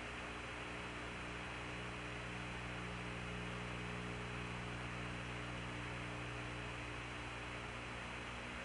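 Steady electrical hum with even background hiss from an open radio link between transmissions, no voices.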